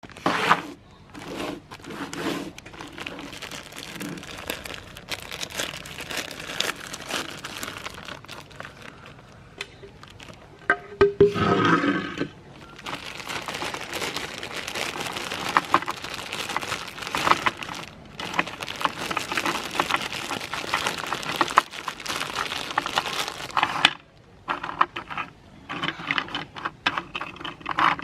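Meat grinder crunching colourful cookies: a dense crackling full of sharp cracks. It gets louder and more pitched for about a second, about eleven seconds in.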